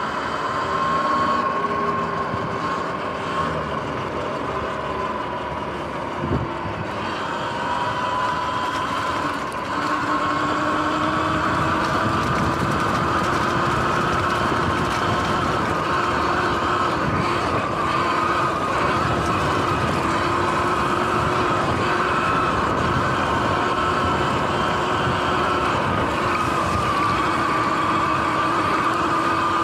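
Sur-Ron X electric dirt bike's motor and chain drive whining steadily under way, the pitch dipping briefly and then rising and holding, over tyre and wind noise. One sharp knock about six seconds in.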